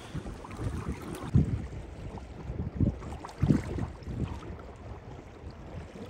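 Strong wind buffeting the microphone over choppy waves lapping an inflatable boat, a steady low rumble broken by a few brief low thumps about one and a half, three and three and a half seconds in.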